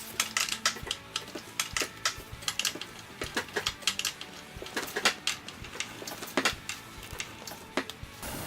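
Irregular sharp clicks and light taps, several a second, of hand work on cabinet door hardware.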